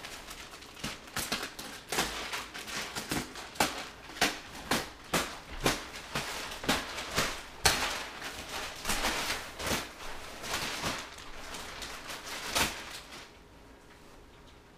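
Thin plastic wrapping on a vacuum-packed foam mattress crinkling and rustling in quick, irregular crackles as it is pulled and handled. The crackling stops about a second before the end.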